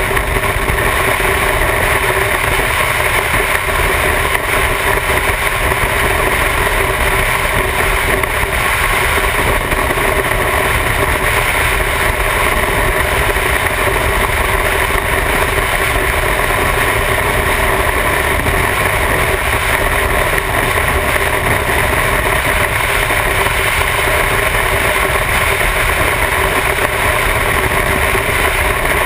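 Motorcycle engine running steadily at highway cruising speed, heard from on board the bike, mixed with constant wind and road noise.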